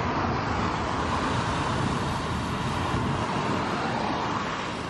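Road traffic: cars driving past on the road, a steady rush of tyre and engine noise that eases off slightly near the end.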